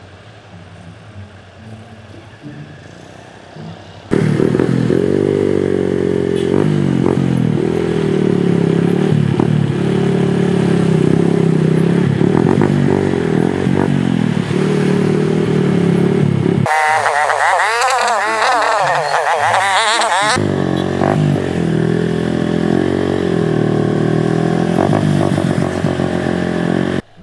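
Motorcycle with a loud racing exhaust revving, its pitch rising and falling. It starts suddenly about four seconds in, goes higher-pitched for a few seconds past the middle, and cuts off abruptly just before the end. Before it comes in there is only faint road traffic.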